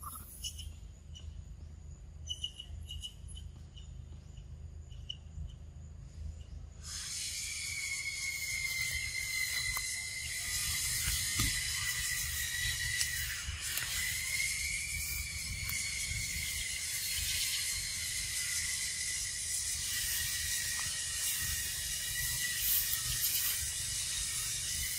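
An insect chorus starts abruptly about seven seconds in and keeps up a steady, shrill buzzing, a held tone under a high hiss. Before it there are only faint ticks over a low rumble.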